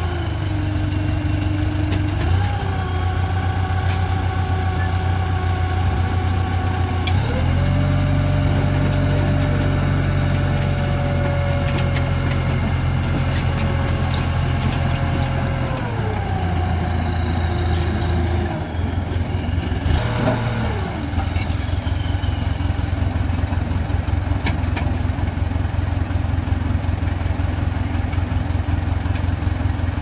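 Self-loader truck's diesel engine running raised to drive the hydraulics while the bed tilts down and the outrigger legs lift the truck's front, with a hydraulic whine held at steady pitches. The whine steps up about 7 s in, drops back about 16 s in, and glides down sharply about 20 s in. After that a heavy diesel runs steadily with a pulsing beat.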